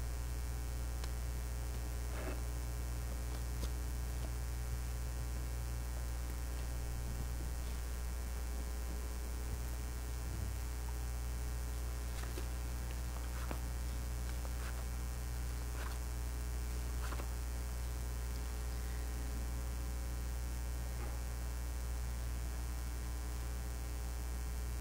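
Steady electrical mains hum, with a few faint scattered clicks and knocks.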